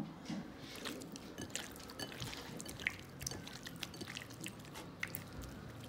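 A hand working raw boneless chicken pieces in lemon juice and salt in a bowl, making a scatter of small, irregular wet clicks and squelches.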